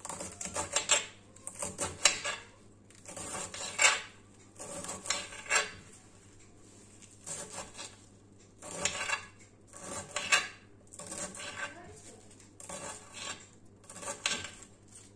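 Kitchen knife chopping broccoli leaves on a glass cutting board, the blade tapping the board in quick runs of strokes with short pauses between them.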